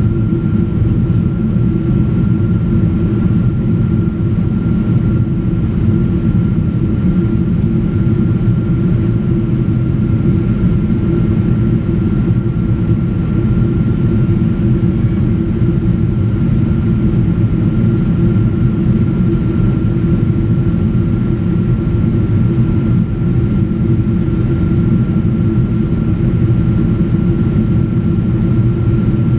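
Cabin noise of a Boeing 777-200ER in flight shortly after takeoff, heard from a window seat: its Rolls-Royce Trent engines and the airflow make a loud, even, deep rumble with a thin, steady high tone above it.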